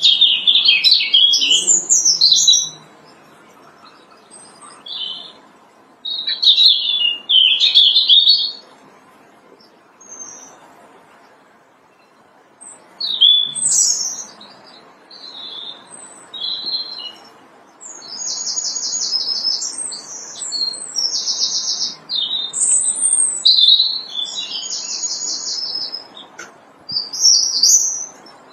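European robin singing: short, high, warbling phrases separated by pauses of a few seconds, the later phrases holding rapid trills.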